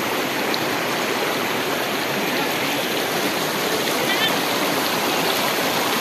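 Shallow rocky river rushing over stones in small rapids: a steady, loud rush of water.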